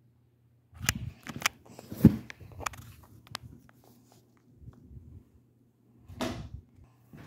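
A series of sharp clicks and knocks, the loudest about two seconds in, then a short rustling burst near the end, over a faint steady low hum.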